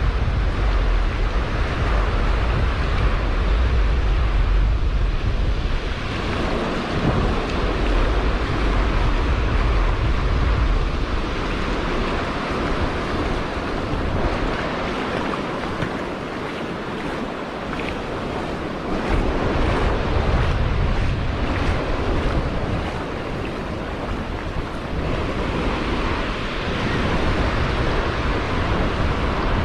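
Ocean surf breaking and washing up the beach in a steady rush, with wind buffeting the microphone in gusts, heaviest in the first few seconds.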